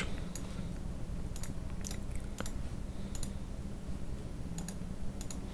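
Computer mouse clicking a few times, scattered single clicks over a steady low electrical hum.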